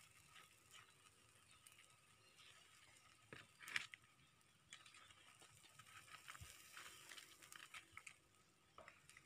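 Near silence with faint, scattered crackles from a whole pig roasting on a spit over charcoal embers, and one sharper click a little under four seconds in.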